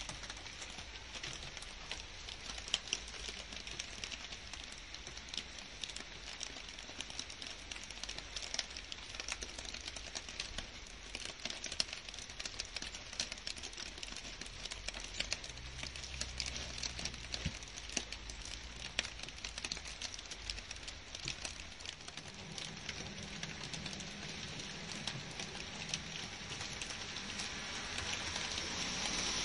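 Steady rain falling on garden foliage: a dense, even hiss full of fine individual drop ticks, growing a little heavier near the end. A faint low rumble sits underneath in the second half.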